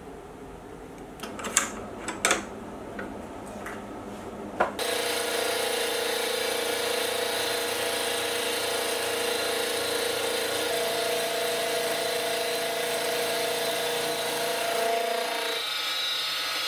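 A few sharp metal clicks as a dovetail cutter is tightened into its holder with a hex key, then about five seconds in a milling machine starts cutting: the dovetail cutter milling mild steel under flood coolant, a steady running noise with a constant whine, and a second higher tone joining partway through.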